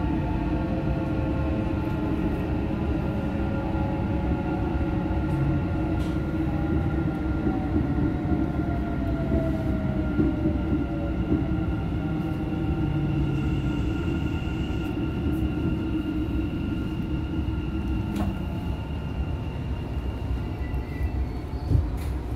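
Dubai Metro train heard from inside the car: a steady rumble of the running train with the whine of its electric traction motors, one tone sliding down in pitch partway through. Near the end the whine fades as the train slows into the station, and there is a single short knock.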